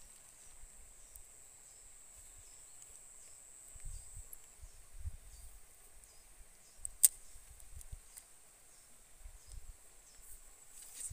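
Quiet riverbank ambience. A steady, high, thin insect drone stops about four seconds in, with scattered low rumbles and one sharp click about seven seconds in.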